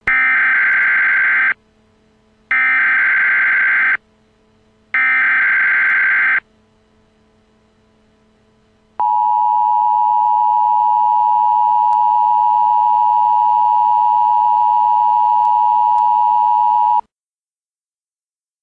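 Emergency Alert System test tones: three short bursts of the SAME digital header data, then the two-tone EAS attention signal (853 and 960 Hz sounded together) held steady for about eight seconds before cutting off suddenly.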